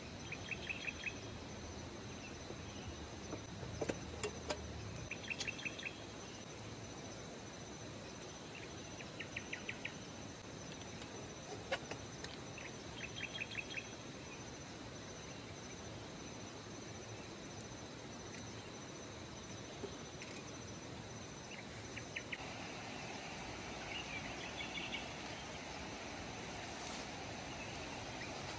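Outdoor ambience of insects: short chirping trills of quickly repeated pulses come back every few seconds over a steady high-pitched drone. A few sharp clicks sound in between.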